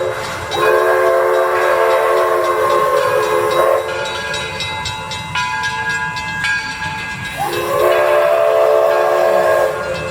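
Michigan Central six-chime steam whistle on a 4-4-0 steam locomotive, blown in two long blasts. Each blast is a chord of several notes that slides up as it opens and sags as it closes.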